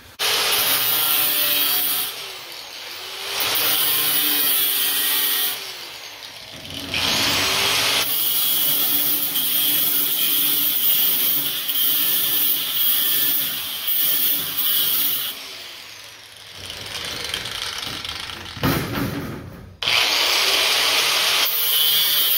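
Angle grinder with a thin cut-off wheel cutting through perforated metal mesh sheet, a loud high grinding hiss. It is broken by a few short pauses where the wheel comes off the metal, then bites in again.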